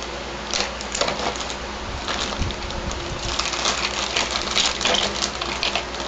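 Plastic toy accessories and their packaging being handled: an irregular run of small clicks, taps and crinkles.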